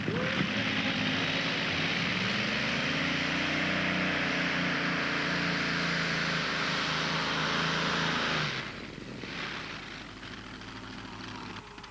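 Modified pulling tractor's engine at full power hauling the weight sled: a loud, steady exhaust roar whose pitch climbs over the first few seconds and then holds. About eight and a half seconds in it drops off sharply to a much fainter engine sound.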